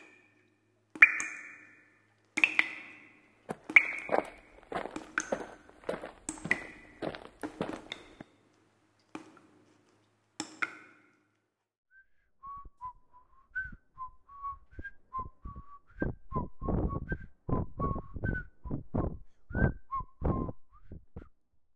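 A series of sharp taps or knocks, each with a brief ringing tail, for about ten seconds. Then a lone whistled tune of short rising and falling notes, joined about halfway through by a quick run of loud, rhythmic, noisy strokes.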